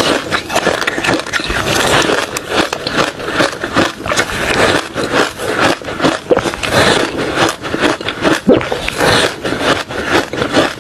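Refrozen crushed ice and shaved ice crunching and grinding close to the microphone, a dense unbroken run of quick crunches and scrapes.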